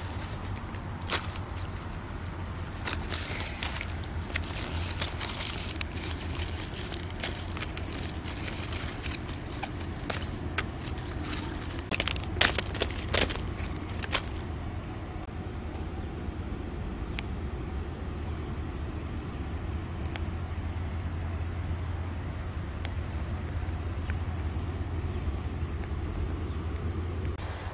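Crackling and rustling of leaves and berry stems being handled, with scattered sharp clicks through the first half that thin out about halfway through, over a steady low rumble.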